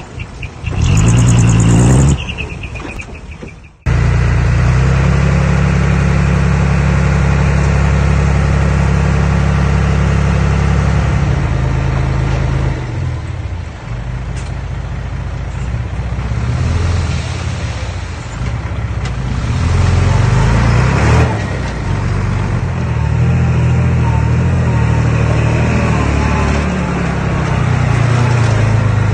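Engine of a piece of earthmoving machinery running steadily and changing with the load. There is a loud noisy burst about a second in, then an abrupt cut just before four seconds.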